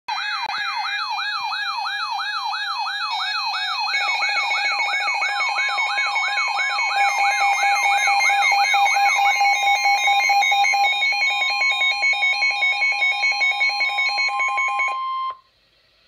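Several weather alert radios sounding their alarms together on receiving a high wind warning: a siren-like rising sweep repeating about twice a second, a pulsing beep joining about four seconds in, and a steady alert tone, the NOAA Weather Radio 1050 Hz tone, in the second half. All of them stop about a second before the end.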